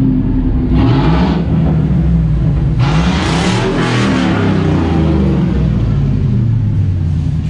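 Engine of a straight-piped GMC Sierra pickup, exhaust cut with no muffler, running loud. It is revved up and back down twice, about a second in and again around three to four seconds in.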